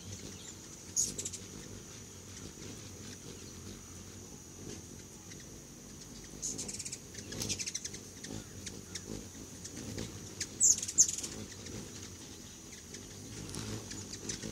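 Hummingbirds at a feeder giving short, very high chirping calls in quick bursts: once about a second in, again midway, and loudest about two-thirds of the way through.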